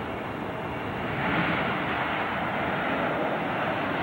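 Boeing 747-400F freighter's jet engines, a steady dense noise as the jet rolls down the runway just after touchdown, growing louder about a second in. The sound is dull and narrow, recorded on a VHS-C camcorder.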